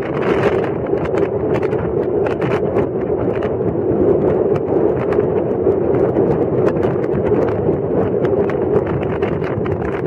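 Car driving along a paved road: steady road and engine noise with wind buffeting the microphone, and many small knocks and ticks throughout.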